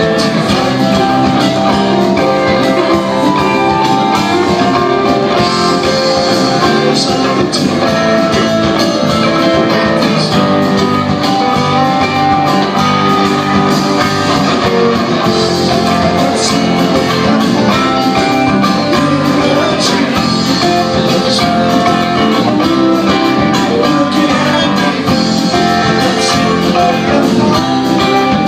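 Live rock band playing, with guitar prominent, at a steady loud level.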